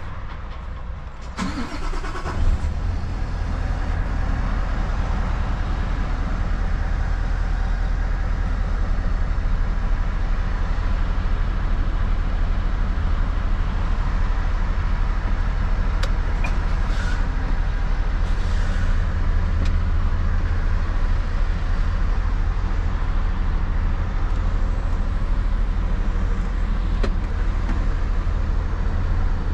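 Scania 530 S truck's V8 diesel engine starting about a second and a half in, then running with a deep steady rumble that grows a little louder over the next several seconds. A few short clicks come later.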